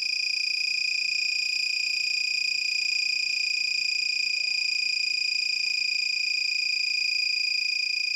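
Piezo buzzer of a homemade rain-detector circuit sounding one continuous, steady high-pitched tone: the detector's alarm, switched on.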